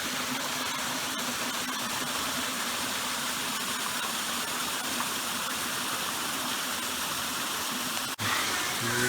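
Steady rushing water of a mountain creek, an even hiss with a brief break near the end.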